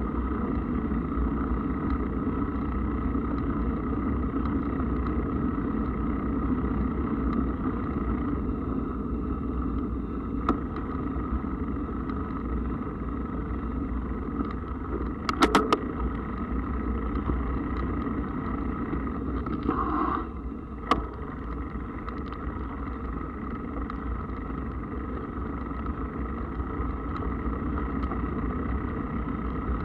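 Mountain bike being ridden along a path: a steady rumble of tyres and riding noise, with a few sharp clicks and rattles about a third and two thirds of the way through.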